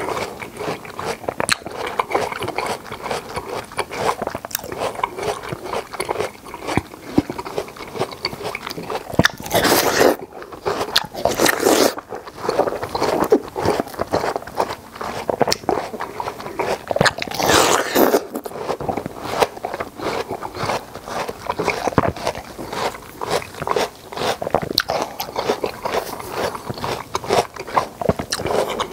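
Close-miked biting and chewing of crunchy watermelon flesh: a dense run of crunches, with a few louder, longer bites about a third of the way in and again just past halfway.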